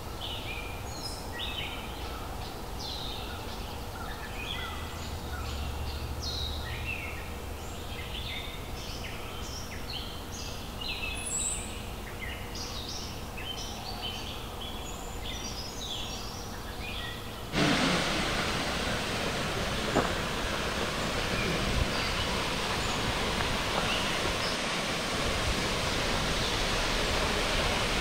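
Songbirds singing in a forest, many short chirps over a faint background. About two-thirds of the way through, the sound cuts abruptly to the louder, steady rush of a waterfall.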